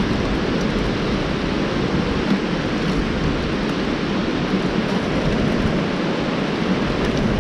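Steady rushing and splashing of running water, with no breaks or distinct strikes.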